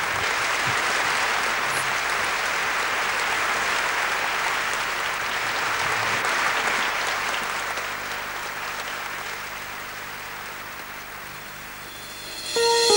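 Large theatre audience applauding, dying away over the last few seconds. The orchestra's opening notes come in just before the end.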